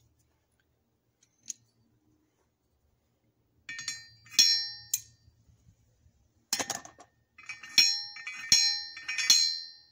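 Steel parts of a blacksmith's C-frame guillotine tool clinking against each other as the upper die is handled in the frame, sitting in the anvil's hardy hole: sharp metallic clinks with a bell-like ring, in three bunches starting a few seconds in.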